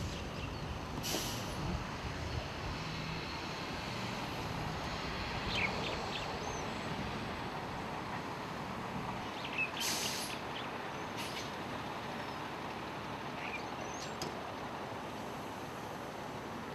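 A water tanker truck's engine running as the truck moves, a low steady hum through the first half over an even wash of outdoor noise. Short hissing bursts come about a second in and again around ten seconds in.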